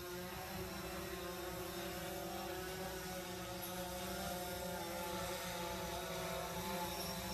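DJI Phantom 4 Pro quadcopter's propellers humming steadily as it climbs, a buzz made of several steady pitches.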